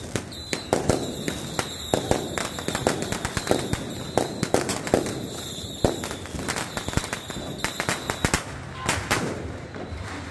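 Strings of firecrackers going off in rapid, irregular cracks, thinning out to a few louder bangs near the end.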